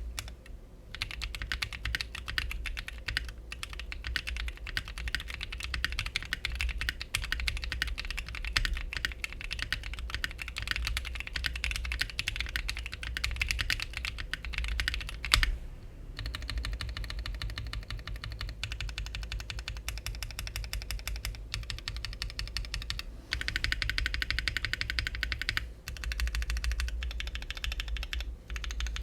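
Typing on a custom 60% mechanical keyboard: a CannonKeys Bakeneko60 with a cast aluminium case filled with polyfill, an FR4 plate, lubed Akko CS Ocean Blue tactile switches and PBT keycaps. Fast, continuous keystrokes, with one louder stroke and a brief pause about halfway through.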